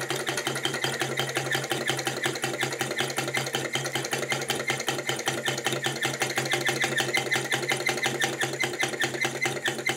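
Mini hot-air Stirling engine running on its own once its glass cylinder has heated over the alcohol burner: its pistons and crank linkage make a rapid, steady clicking, several beats a second, over a steady low hum.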